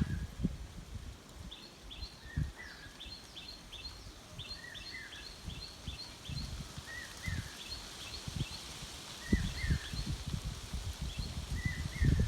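Songbirds calling: one repeats a short paired call about every second and a half, and another gives quick runs of short, higher chirps. Under them comes an uneven low rumble of wind on the microphone, strongest at the start, around the middle and near the end.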